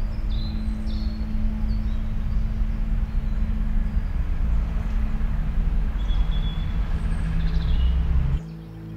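City street traffic rumble with a few birds chirping over it. Near the end the traffic noise cuts off suddenly, leaving a quieter steady hum.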